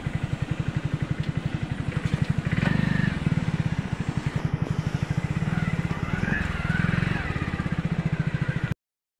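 Motorcycle engine running at low speed with a rapid, even beat, swelling a little twice as the bike moves; the sound cuts off abruptly near the end.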